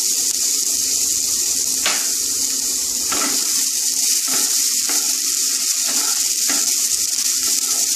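Chopped vegetables (onion, carrot, beans, peas and green capsicum) sizzling steadily in oil in a non-stick frying pan. From about two seconds in, a wooden spatula scrapes and knocks against the pan several times as they are stirred.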